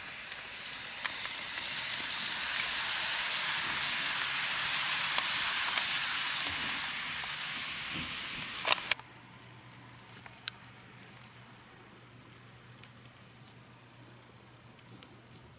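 N-gauge model trains, a Kato 283 series and a Tomix KiHa 81/82, running on sectional track. Their wheels and motors make a steady rushing rattle that swells and eases as a train passes close. About nine seconds in it drops abruptly to a quiet low hum with a few light clicks.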